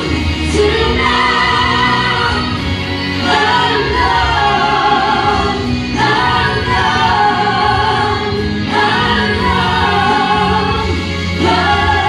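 A vocal group of two women and a man singing together into handheld microphones over steady accompaniment. The song comes in phrases of about three seconds, with short breaks between them.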